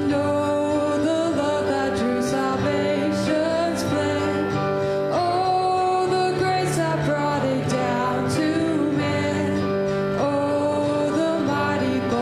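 Worship band music: a slow song with guitar over held chords and a wavering melody line.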